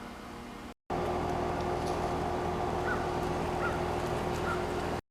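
Steady machine hum with several fixed tones, starting abruptly about a second in after a short quieter stretch. A few faint short chirps sound over it.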